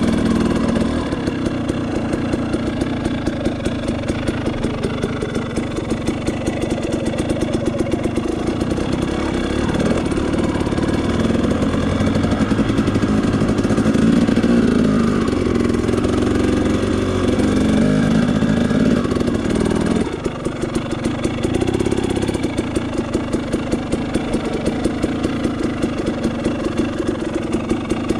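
Off-road dirt bike engine running as the bike climbs a rough trail, its revs rising and falling. The level drops suddenly about twenty seconds in.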